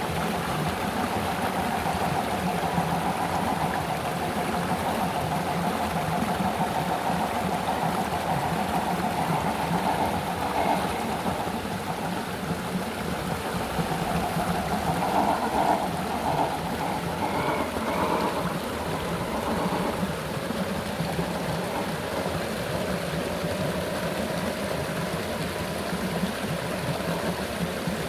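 Small electric motor and gears of an MN 128 RC rock crawler whining, rising and falling with the throttle, over the steady rush of a flowing river.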